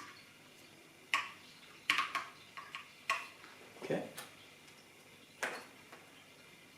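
About six separate sharp plastic clicks of keycaps being fitted onto a custom mechanical keyboard with Holy Panda switches.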